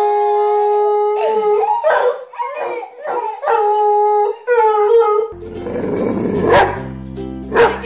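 Doberman howling in long, evenly pitched notes along with a toddler's crying, several howls one after another. About five seconds in, this gives way to background music with a dog's short barks.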